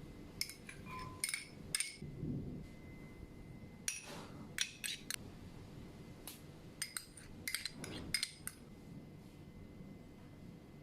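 Kitchen utensils and dishes clinking: light sharp clinks, some briefly ringing, come in three groups, about half a second in, around four seconds, and around seven to eight seconds.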